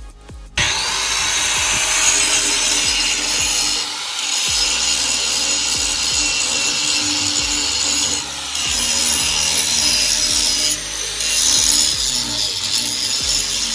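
DeWalt 11-amp angle grinder grinding the steel edge of a brush cutter blade to sharpen it: a loud, hissing metal-on-abrasive grind that starts suddenly about half a second in, with brief dips in level around four, eight and eleven seconds as the disc eases off the blade.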